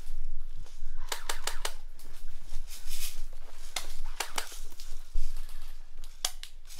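Airsoft guns firing in short quick runs of sharp snapping clicks, about a second in, around four seconds and again near the end. A dull thump a little after five seconds is the loudest sound.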